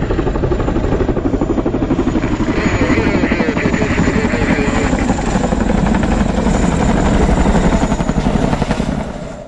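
Helicopter rotors beating rapidly and steadily at a hover, loud and dense, dropping away near the end.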